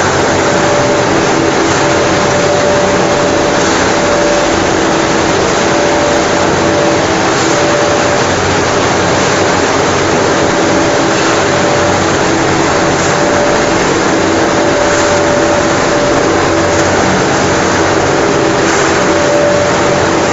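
Pet food production line machinery running steadily: a continuous mechanical noise with two constant hums under it.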